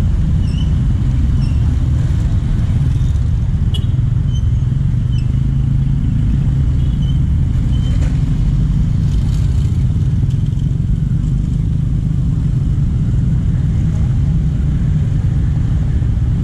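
Street traffic: small motorcycles and a three-wheeled bajaj passing, over a steady low rumble, with a few short high chirps.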